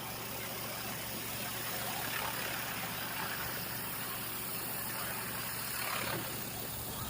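Commercial pressure washer's engine running steadily, with a hiss of water spray over it.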